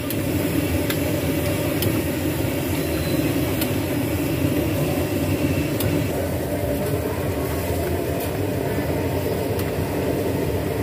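High-pressure gas wok burner running with a steady low roar under a wok of stir-fried greens and gravy, with a few light clinks of a metal ladle and spatula against the wok.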